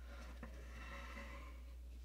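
Faint handling noise of a large toy figure being turned by hand on a tabletop: one small click about half a second in, then a soft scrape, over a steady low hum.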